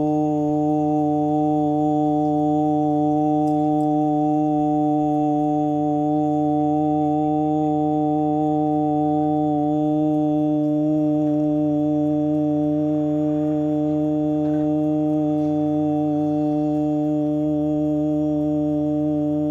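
Sustained organ-like drone held on one low pitch with its overtones, steady and unbroken throughout.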